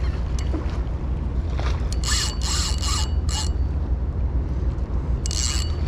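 Fishing reel whirring in two short spells, the first about two seconds in and the second near the end, as a big fish is fought on the line; a steady wind rumble on the microphone underneath.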